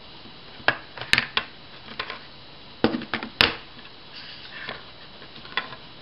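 Plastic clicks and knocks of a Casio FX-86DE calculator and its slide-on hard cover being handled on a wooden desk as the cover comes off: about eight sharp, irregular clicks, with a soft scrape about four seconds in.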